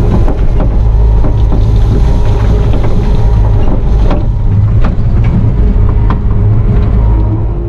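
Bobcat T650 compact track loader's diesel engine running loud and steady, heard from inside the cab, while stone pours out of the tilted bucket with a few sharp knocks of rock striking.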